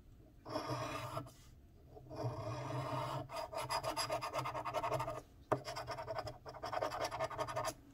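A coin-style scratcher rasping the latex coating off a scratch-off lottery ticket in quick repeated strokes. There is a brief pause about a second in and a single sharp click a little past halfway.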